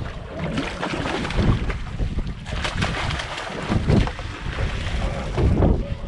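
Wind buffeting the microphone, over water sloshing and splashing against the boat's side as a hooked kingfish is netted at the surface.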